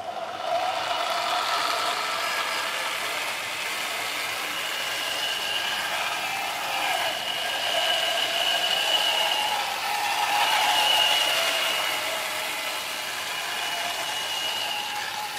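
Electric drive motors and gearboxes of a HengLong radio-controlled model tank whining as it drives across grass, starting abruptly and wavering up and down in pitch as its speed changes, with a gear rattle.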